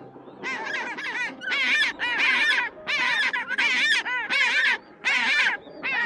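Penguin calling: a run of five or six calls, each under a second long and made of quick wavering notes, with short pauses between them.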